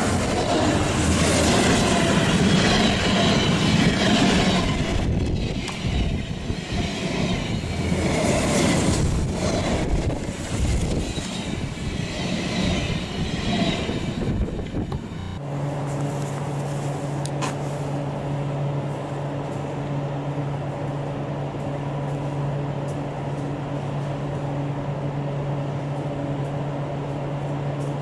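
Yellow Dutch NS electric passenger train running past at speed close beside the platform, loud at first and fading as it goes. After a sudden cut about fifteen seconds in, a steady low hum with a few even tones takes over.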